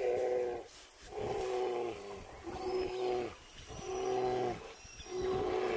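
Brown bear bawling in a run of about five pitched, slightly falling wails, roughly one a second.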